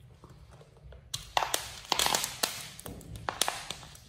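Bubble wrap popping under a sneaker's sole: a run of sharp pops and crackles in several bursts, starting about a second in.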